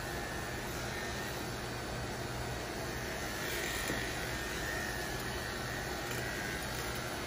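Electric dog grooming clippers running steadily as they are worked through a chow chow's coat.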